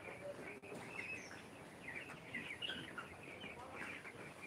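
A flock of young broiler chickens cheeping: many short, high chirps overlapping in an irregular chorus.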